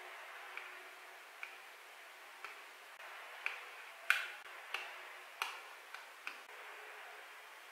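A series of short, light clicks and taps, about one a second and unevenly spaced, the loudest about four seconds in, as thin leather pieces are folded and pressed with a white plastic folding tool on a stone slab.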